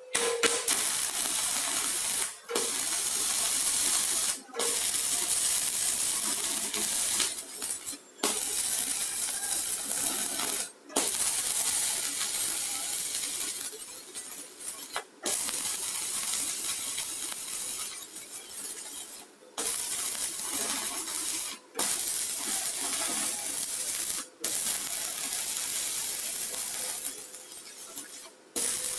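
Stick-welding arc on a 3.2 mm electrode from a mini 250 stick welder, struck at the very start and then burning with a steady crackling hiss. The hiss breaks off for a moment about every two to four seconds.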